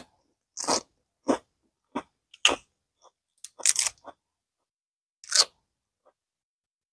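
A person chewing crunchy food close to a lapel microphone: a string of about seven crisp crunches, stopping about five and a half seconds in.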